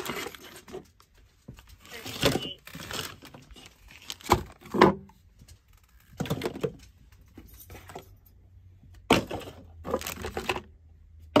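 Packaging being handled: a plastic bag and packing paper crinkling and rustling in irregular bursts, with a few light knocks against a cardboard box.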